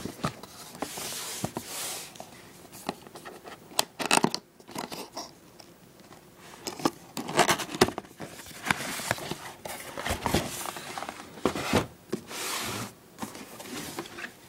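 Cardboard power-supply box being opened by hand: cardboard rubbing and scraping in several long swishes, with scattered knocks and clicks.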